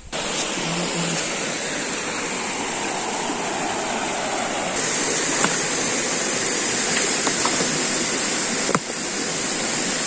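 Steady rush of flowing water, with a few light knocks of stones as rocks are lifted and turned over by hand.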